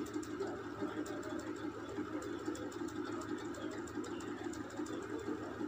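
A low, steady hum of room noise with faint scattered ticks.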